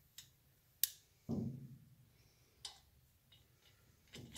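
Sharp metallic clicks from a click-type torque wrench on the cylinder head bolts of a 1940 Harley-Davidson UH flathead twin, set at 60 foot-pounds. The sharpest click comes a bit under a second in, and a short low thump follows about half a second later.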